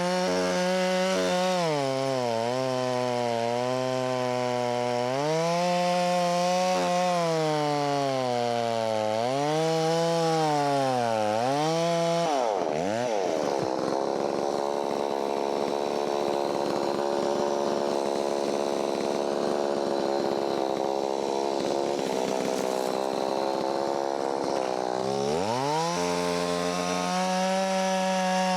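Holzfforma 660 clone two-stroke chainsaw cutting wood: for the first dozen seconds the engine pitch sags and recovers over and over as the chain bites and eases in the cut. About halfway through it revs up to a high steady scream for some twelve seconds, then drops back to a lower steady speed near the end.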